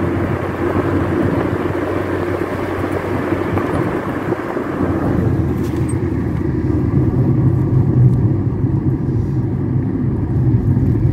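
Car driving along a rough rural road, heard from inside the cabin: a steady noise of wind, tyres and engine. About halfway through, the higher hiss drops away and leaves a low rumble.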